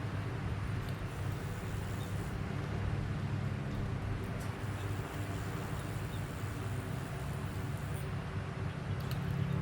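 Steady low hum of a running engine or motor over a constant background hiss.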